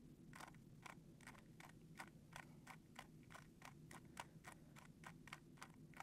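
Faint, quick clicking of a GAN 3x3 speed cube's layers being turned, about three turns a second, as the R U R' U' corner-insertion algorithm is repeated over and over.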